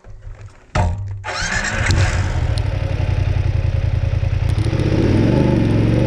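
A motorcycle engine starts about a second in and then keeps running steadily.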